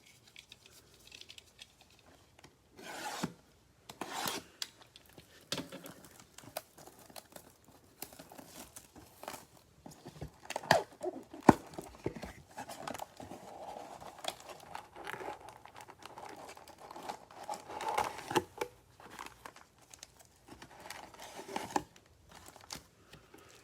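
Plastic wrap on a sealed trading-card box being torn and crinkled, with irregular rustling and sharp little clicks and taps as the cardboard box is opened and handled.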